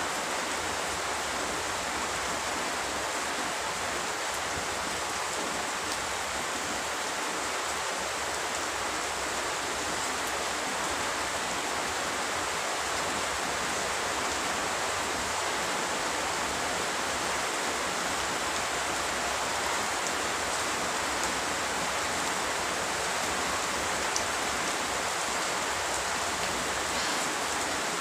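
Steady rain falling, a dense even hiss that holds without change, with a few faint ticks near the end.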